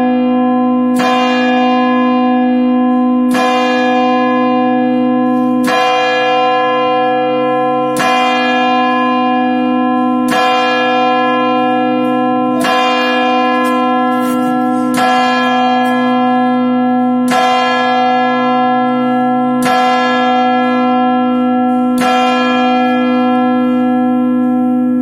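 A single church bell tolling steadily, struck eleven times at even intervals a little over two seconds apart. Each stroke rings on with a low hum that carries under the next strike.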